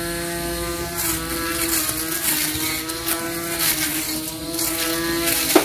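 Cordless battery-powered electric grass trimmer running at speed: a steady motor whine that sags a little each time the spinning blade bites into the grass, with the swish and slap of cut grass over it. A sharp click near the end.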